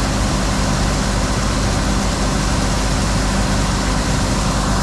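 Tractor engine idling steadily, heard from inside the cab: a constant low hum under an even hiss.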